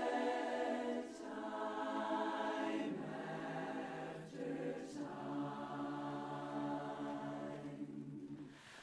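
Women's barbershop chorus singing a cappella in close four-part harmony, holding long sustained chords that change every second or two. The sound dips briefly just before the end.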